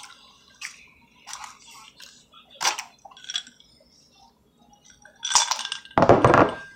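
Mukbang eating sounds: scattered mouth noises of people chewing pasta and fried chicken strips, with light clinks of cutlery and dishes, and a louder burst of noise near the end.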